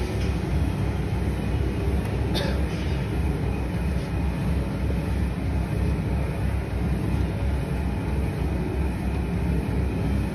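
Cattle feed mixer running, its paddles churning feed mash in the trough: a steady low machine drone with an even pulse. There is a brief falling squeal about two and a half seconds in.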